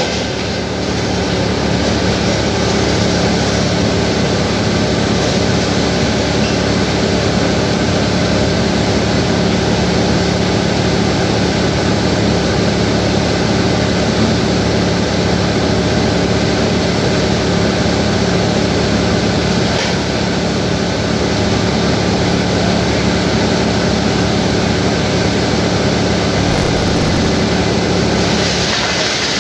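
Sawmill machinery running steadily, a constant engine-like drone with a steady low hum, its tone shifting slightly near the end.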